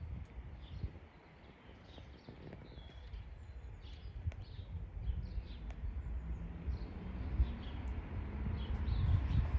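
Small birds chirping in short, repeated calls over a low rumble that grows louder in the second half.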